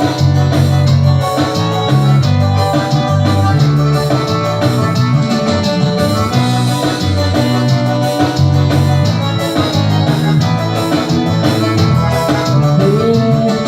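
Instrumental break of a Brazilian pop song: a band plays with a steady beat and a bass line under a melody, with no singing.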